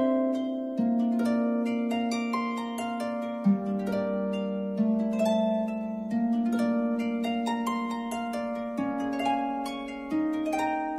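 Background music: a slow melody of plucked string notes, harp-like, one note or chord changing every second or so.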